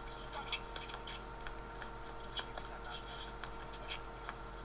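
Low room tone: a steady electrical hum with scattered faint clicks and ticks.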